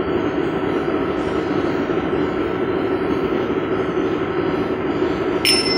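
Steady drone of background noise in a theatre auditorium, with no speech. Near the end comes a short, high-pitched ping.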